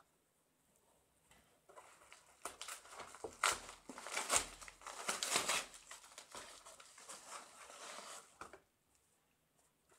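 Padded paper mailer being torn open and handled: crinkling paper and tearing, starting about two seconds in and loudest around the middle, with several sharp rips.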